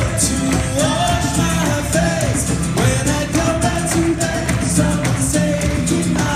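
Live acoustic band playing an upbeat song: guitars, a hand drum keeping a steady beat and accordion, with a voice singing over them.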